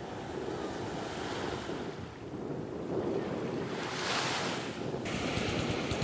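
Surf washing onto a sandy beach, with wind buffeting the microphone; a wave swells loudest about four seconds in.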